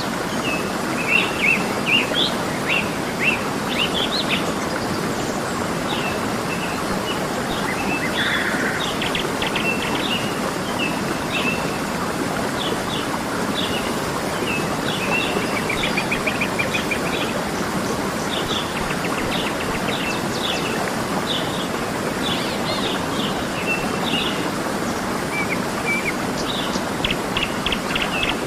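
Steady rush of a waterfall, with small birds chirping and trilling repeatedly over it.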